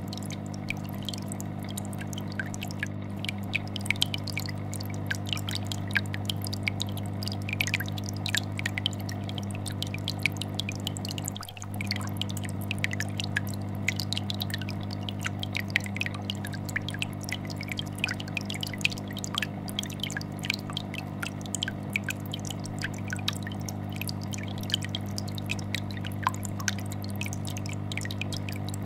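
Aquarium air bubbler bubbling in a constant stream of small pops and drips over the steady low vibrating hum of a fish tank filter. The hum dips briefly about halfway through.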